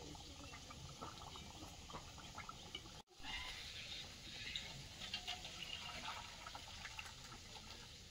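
Faint bubbling and stirring of a thick fish-and-potato curry in a metal pan, with light clinks of the utensil on the pan. Near the end the curry is poured out of the pan into a steel bowl.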